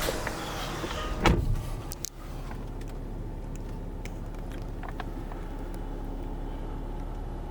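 A single loud thump a little over a second in, then a Land Rover Discovery's engine idling steadily.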